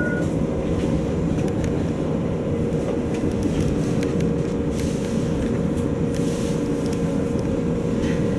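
CAF Urbos 3 light-rail tram heard from its cab, running with a steady low rumble and a constant hum.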